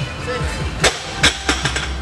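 Barbell loaded with rubber bumper plates dropped from a deadlift onto a rubber gym floor: a loud bang a little under a second in, a second bang just after, then a few smaller bounces. Background music plays throughout.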